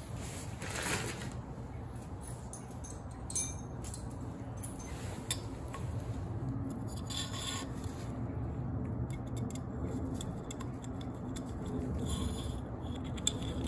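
Handling of the inducer blower's metal fan wheel and a hex key: scattered light clicks, taps and rubbing as the wheel is picked up and the key is fitted into its hub set screw, with one sharp click a little over three seconds in. A low steady hum runs underneath.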